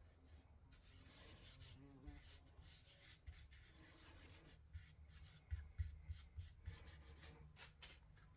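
Faint rubbing strokes on a wooden coaster, with a few light knocks of handling about midway through.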